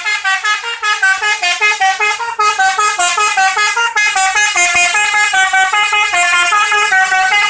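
Bus 'telolet basuri' melody horn playing a fast tune, its notes stepping up and down several times a second. It is loud and starts abruptly.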